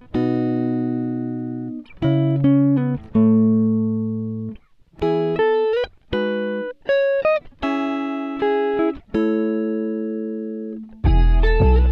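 Background music: plucked guitar notes and chords, each ringing and fading, with a deeper bass part coming in near the end.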